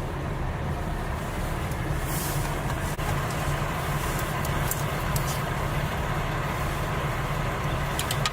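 Steady low rumble of vehicle traffic, with a faint hum and a few light clicks near the end.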